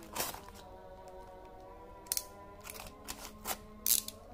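Soft background music with sustained notes, over several short crackles and scrapes of cardboard packaging being handled, the loudest near the end.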